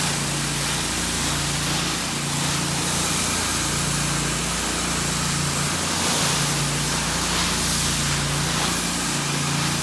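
Pressure washer spraying water from a J-rod wand onto the lower part of a house: a steady hiss of spray over the machine's engine running at a constant speed.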